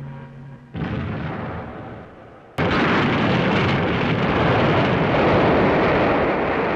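Film sound effects: a crash explosion about a second in as a burning plane goes down, fading away. Then, from about two and a half seconds in, a sudden, loud, continuous rushing rumble as floodwater bursts into a subway station.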